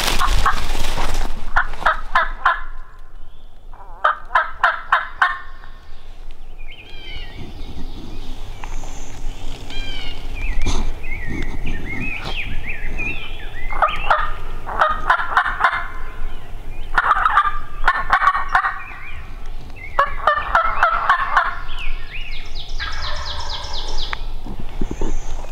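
A wild turkey gobbler gobbling again and again: a rapid rattling gobble a couple of times early on, then a run of gobbles in quick succession in the second half. Small songbirds chirp in the gaps.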